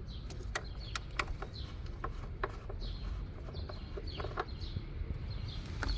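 Birds chirping, short falling calls about once a second, with scattered sharp clicks and knocks over a low rumble.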